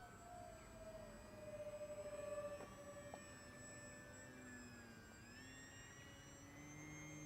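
Faint whine of the Volantex Saber 920's brushless motor and propeller in flight, a few thin tones whose pitch slides slowly down, then rises about five seconds in, with a lower tone joining near the end.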